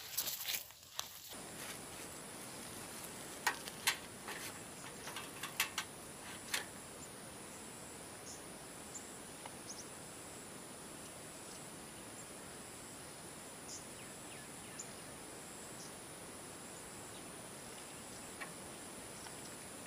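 Steady high-pitched insect chorus, with some rustling at the start and a few sharp clicks in the first several seconds.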